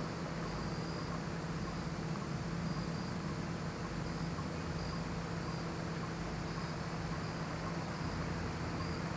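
Crickets chirping in short, faint, repeated chirps over a steady low hum and hiss.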